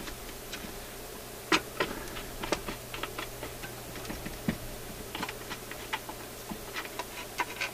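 Irregular small clicks and knocks of hands and a screwdriver working on a BSR record changer's mechanism. One sharper knock comes about a second and a half in.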